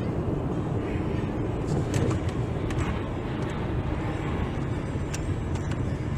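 A car driving, with a steady low engine and road rumble and a few light clicks scattered through it.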